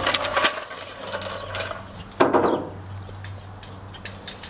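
Footsteps on a concrete driveway with light clicking and clattering handling noises, and one louder clatter about two seconds in.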